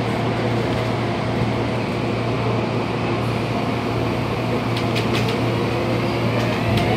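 Interior noise of a Hong Kong MTR train car: a steady hum of running and ventilation noise. A few sharp clicks come about five seconds in, and near the end a whine starts rising in pitch.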